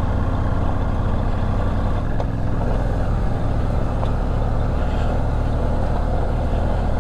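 Parallel-twin adventure motorcycle running steadily over rough washboard gravel, engine drone mixed with heavy road rumble; the engine note shifts slightly a couple of seconds in.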